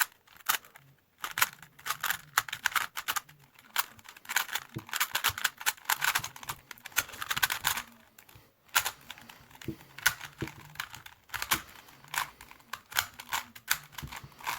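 Rubik's brand 3x3 cube being turned fast during a speedsolve: rapid clicking and clacking of the plastic layers in runs, with brief pauses about a second in and about eight seconds in.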